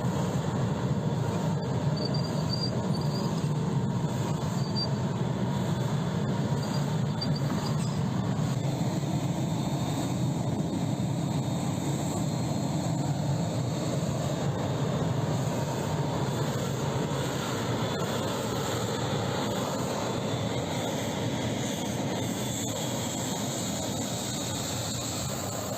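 T-80BV tank's gas-turbine engine running: a steady low rumble with a faint whine over it.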